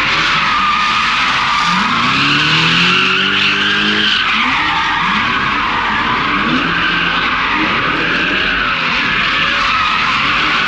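A drifting car's tyres squeal steadily through a long slide while the engine revs rise and fall again and again, with the biggest rev climb about two seconds in.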